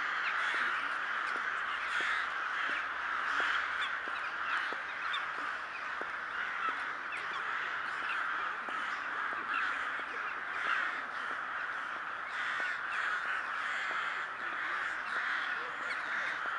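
A huge flock of corvids calling all at once, a dense unbroken din of overlapping caws; the uploader takes them for rooks gathering in flocks for migration.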